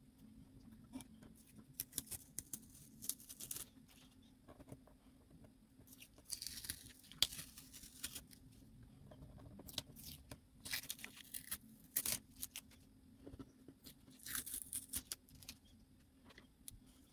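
Tape being peeled off paper in several separate pulls, each a short rasping tear.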